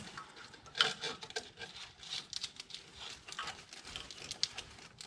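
Hands handling a wiring harness plug and wire in a truck's engine bay: irregular rustling and light plastic clicks, with a sharper click about a second in.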